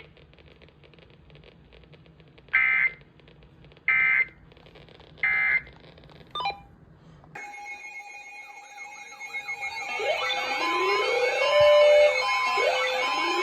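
Emergency Alert System SAME header: three short bursts of screeching digital data tones, evenly spaced. Then a steady alert tone starts, joined by overlapping rising siren-like sweeps and repeated beeps that grow louder.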